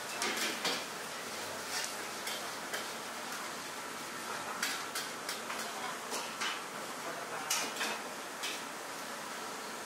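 Metal ladle clanking and scraping against a steel wok in irregular strikes as noodles are stir-fried, over a steady hiss.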